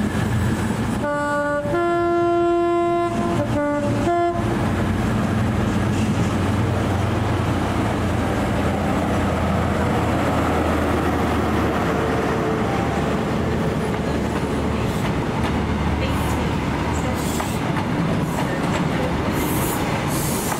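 Class 43 HST diesel power car sounding its two-tone horn about a second in, alternating low and high notes for about three seconds, then its engine running steadily as the train pulls away past, the coaches rolling by on the rails.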